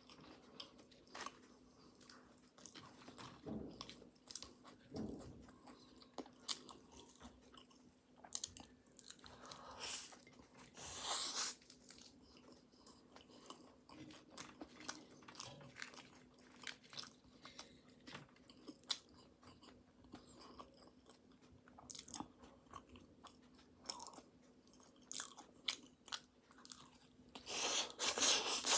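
A person chewing and biting into flaky pastry close to the microphone, with many small crunches and crackles, and two louder noisy stretches, about eleven seconds in and near the end.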